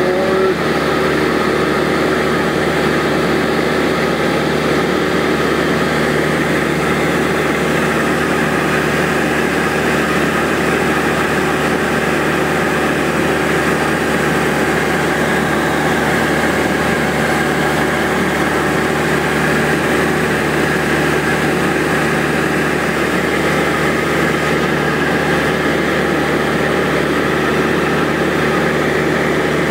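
Single-engine high-wing light aircraft in cruise: a steady engine and propeller drone heard inside the cabin, holding several steady tones without change.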